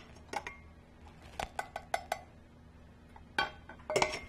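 Stainless steel bowls clinking and tapping against each other as a small bowl of whole egg is emptied into a stand mixer's steel bowl: a scattered series of light metal clinks, some with a brief ring.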